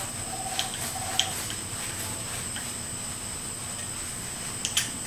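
Steady background hiss with a thin, constant high-pitched whine, and a few soft clicks and rustles from gloved hands handling a paper towel, the sharpest pair near the end.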